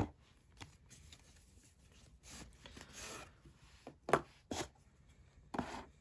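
A coin presentation box being unpacked by hand: soft rubbing and sliding of the case against its cardboard box, with a sharp tap about four seconds in and a couple of further knocks near the end.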